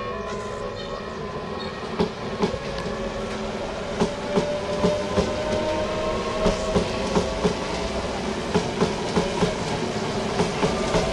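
Train running past over rail joints: wheels clack in quick groups of two or three from about two seconds in, over a steady running noise. A motor whine slowly rises in pitch.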